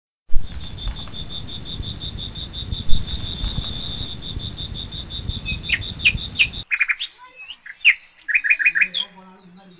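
Outdoor nature sound: birds chirping over a steady, rapid high-pitched pulsing trill and a rustling haze. At about six and a half seconds the haze and trill cut off abruptly, leaving a run of short, quick bird chirps and trills, with a faint low hum near the end.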